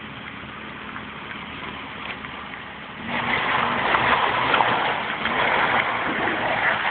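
Off-road 4x4 crawling over rough ground with its engine running. About three seconds in, a louder, rough rushing noise starts and holds almost to the end.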